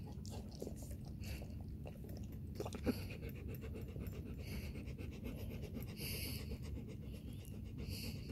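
A dog panting softly.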